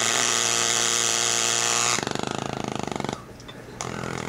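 Bernzomatic propane torch burning with HHO gas fed into its air holes: a loud, steady flame hiss with a hum in it that turns rough and fluttering about two seconds in. It drops away briefly a little past three seconds and then comes back.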